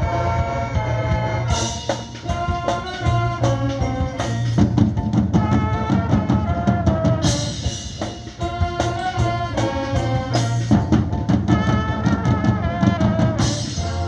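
Marching band playing: brass chords and melody over a driving drumline, with loud crashes four times.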